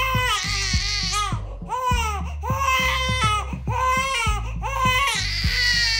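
Young infant screaming and crying: a run of repeated wailing cries, each rising and then falling in pitch, with short catches of breath between them.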